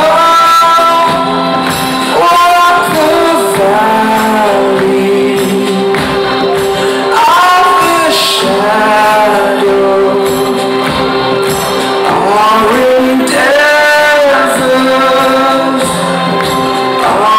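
Live band music with singing, the voices holding long notes and gliding between them.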